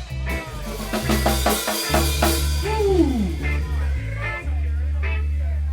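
Live band playing at a sound check: drum kit hits and cymbals over long held bass notes, with one note sliding down in pitch about halfway through.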